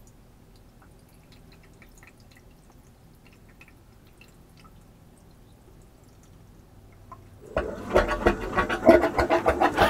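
Faint trickle and drips of water poured into a shower drain. About seven and a half seconds in, a Gulper diaphragm drain pump kicks on and runs loudly with a quick, even pulsing as it pumps the shower water away.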